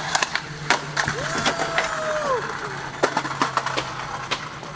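Skateboard on a concrete ledge: the deck and wheels clack, with a string of sharp knocks as the skater goes down the ledge and slams. A drawn-out voice rises and falls about a second in.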